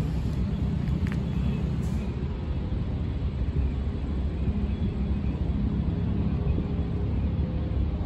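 Steady low outdoor rumble with a faint, even hum running through it.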